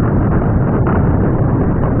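Heavy rain falling, with roof runoff pouring and splashing onto a water tank: a loud, steady rushing noise.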